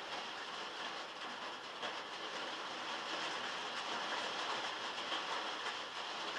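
Heavy rain drumming steadily on a metal roof, a dense hiss of countless drop impacts.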